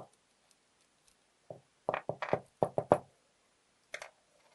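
Sharp knocks and clicks from a dismantled ABUS XP1 lock cylinder being worked by hand: a click at the start, a quick run of about six knocks a couple of seconds in, and one more near the end.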